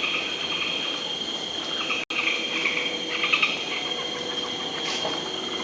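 Tropical forest insects droning steadily on a high, even pitch, with bursts of chirping calls over it. The sound cuts out for a split second about two seconds in.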